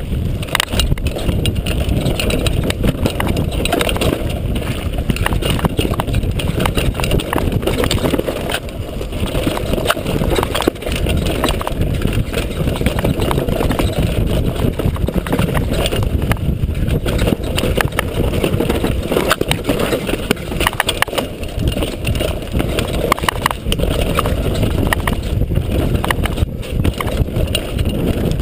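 Downhill mountain bike ridden fast down a dirt forest trail, heard from an on-board camera: a constant low rumble of wind and tyres on the dirt, with rapid clattering and ticks from the chain and frame over the rough ground.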